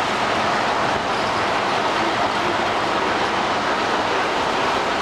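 Model freight train cars rolling past on the track: a steady, even running noise of metal wheels on the rails.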